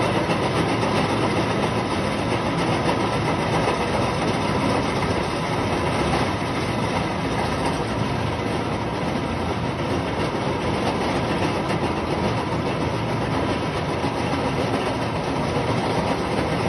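Grain-crushing mill running steadily, crushing grain into feed: a loud, even mechanical noise with a faint hum, without a break.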